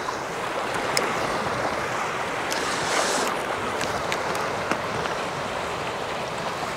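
Small waves washing against a rocky shoreline, a steady wash with scattered short splashes and clicks, with some wind on the microphone.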